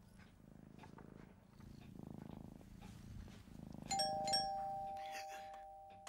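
A sleeping cat purring in slow, soft swells, then a two-note doorbell chime, ding-dong, about four seconds in, its tones ringing on.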